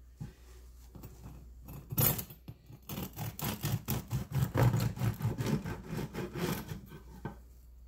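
A knife sawing through the crust of a freshly baked multi-grain sourdough loaf on a wooden board, in quick back-and-forth rasping strokes from about three seconds in. A sharp knock comes about two seconds in.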